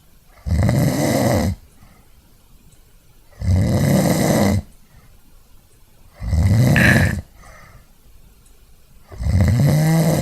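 A person snoring: four snores, each about a second long and coming roughly every three seconds, with quiet breathing gaps between them. Recorded on the built-in mic of an Archos AV420 portable media player.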